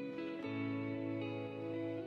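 Background music of sustained, gently strummed guitar chords, the chord changing about half a second in.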